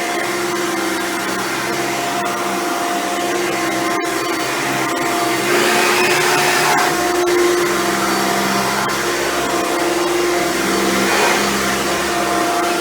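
Hoover Runabout canister vacuum running steadily, its motor hum carrying several steady tones over a rush of air, with the suction growing louder for a stretch around six to seven seconds in. A single sharp click about four seconds in.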